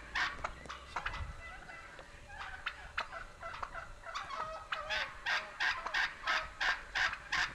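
Wild turkeys calling in a steady run of evenly spaced calls, about three a second. Between about one and four seconds in, the calls drop to quieter, scattered ones, and a second run starts about five seconds in.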